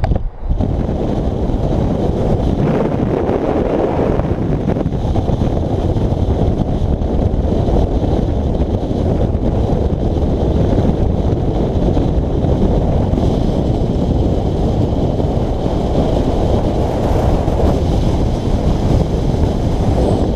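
Loud wind buffeting the microphone: a steady, rumbling noise that rises and falls throughout.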